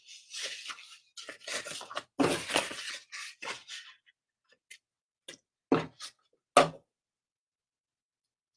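A paintbrush dabbing and brushing paint onto a bisque pottery piece in short, irregular scratchy strokes, followed by a few sharp light taps.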